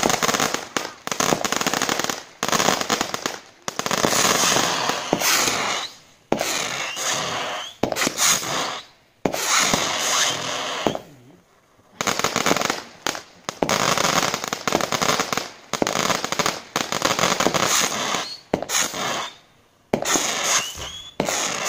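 Epic Fireworks Mad Moth 25-shot, 18 mm bore firework barrage firing: shots in quick succession, each bang trailing off over a second or so, with a few short pauses between volleys.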